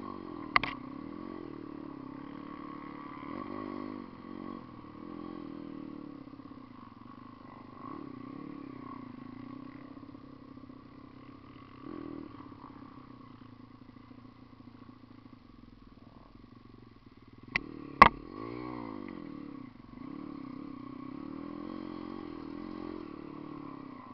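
Dirt bike engine running while the bike is ridden along a trail, its pitch rising and falling with the throttle. Sharp knocks about half a second in and twice more close together about 17 to 18 seconds in are the loudest sounds.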